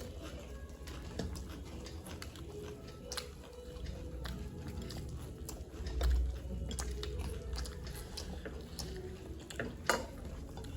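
Close-up chewing of food, puffed rice with snacks, with scattered small clicks and light knocks from handling the food and plate; a duller knock about six seconds in and a sharp click near the end.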